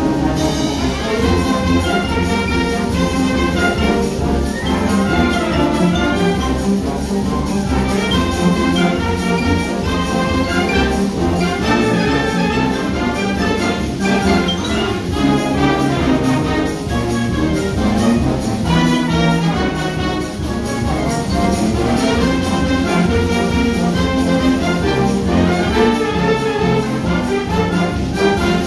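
A school concert band playing a piece together, with brass instruments (tubas, trombones, trumpets) prominent over the woodwinds and percussion.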